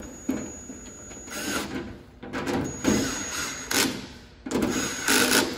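Ryobi cordless drill driving screws to fasten a door handle: three runs of the motor's whine, two of about a second and a last short one, each ending in a short loud rattle.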